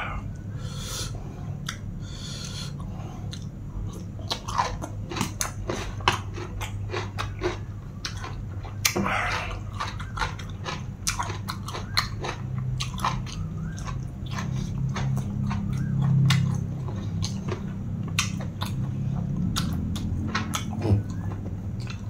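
Close-up chewing and crunching of food: many short crisp bite clicks and mouth noises from a person eating spicy pounded long-bean salad (tam thua) and blanched offal, over a steady low hum.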